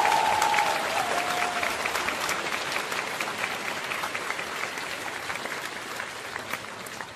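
Applause: a crowd's many claps, slowly fading out. A drawn-out wavering howl rides over it in the first second and a half.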